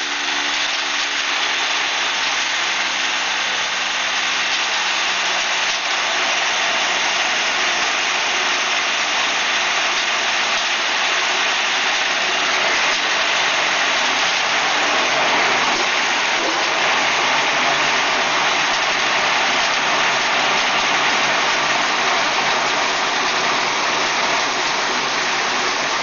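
Wood sawdust machine running under load, grinding wood into sawdust with a steady, dense rushing noise.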